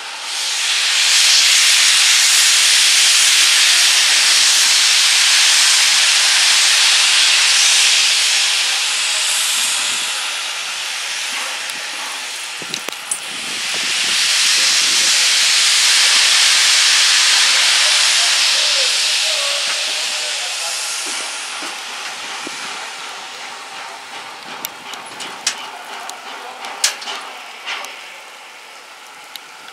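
Steam locomotive venting steam in a loud hiss, in two long blasts: the first from the start to about ten seconds, the second from about thirteen seconds. The hiss then dies away, with a few faint clicks near the end.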